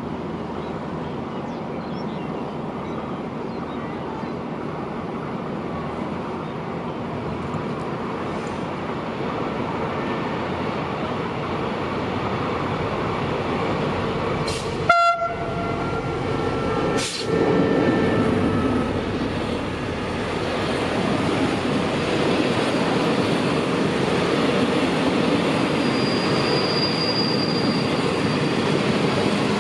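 Diesel-electric passenger train with a QSY locomotive running through the station, its rumble slowly growing louder, with one short horn blast about halfway and a sharp knock about two seconds after it.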